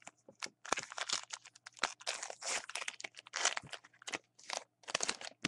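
A baseball card pack's wrapper being torn open and crinkled by hand: a dense run of crackling that starts about a second in.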